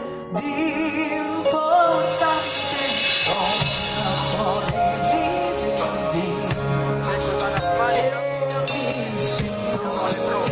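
Live pop band playing a song, drums and guitars under a singing voice with held, wavering notes.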